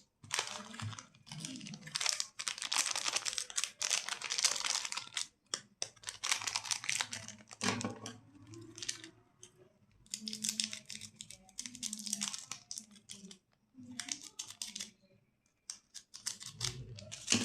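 Plastic candy wrappers crinkling and being torn open, in runs of crackling broken by short pauses.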